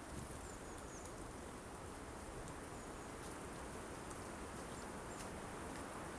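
Tits calling: several short, faint, high chirps scattered through, with a few light taps, over a steady hiss.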